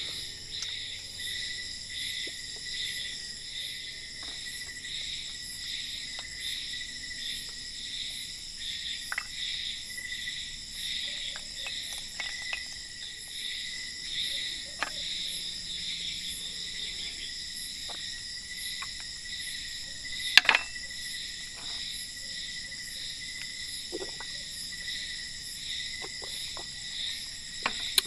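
Night insect chorus of crickets: a steady, high-pitched, pulsing trill. A few light clicks and knocks break in now and then, with a sharp knock about twenty seconds in.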